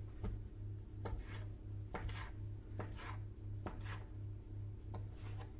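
Kitchen knife cutting through a roll of poppy-seed-paste-filled yeast dough and tapping the wooden board under it, about one cut a second, each cut a quick double tap. A low, evenly pulsing hum runs underneath.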